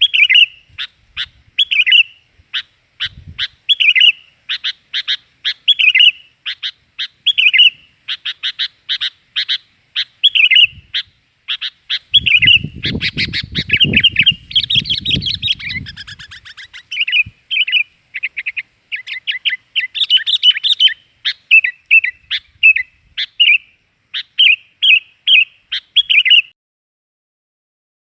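Sooty-headed bulbul (kutilang) calling: a long run of short, bright chirps repeated in quick succession, with a low rumble underneath for a few seconds midway. It stops briefly near the end.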